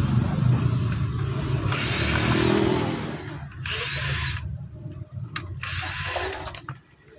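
Cordless drill-driver turning screws in a fan's plastic control-board housing, running in three short bursts, each with a whine that rises and falls, with small clicks between bursts.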